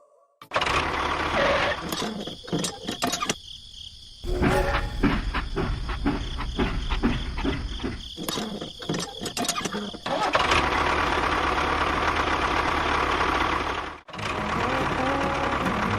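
Small motor of a homemade miniature construction machine running, with rapid clattering and knocking in the middle stretch; the sound changes abruptly several times, as separate shots are cut together.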